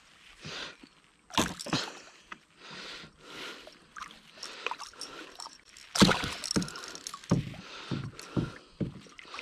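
A hooked Murray cod thrashing at the surface beside a kayak: irregular water splashes and sloshing with sudden knocks, loudest about a second and a half in and in a string of strikes from about six seconds on.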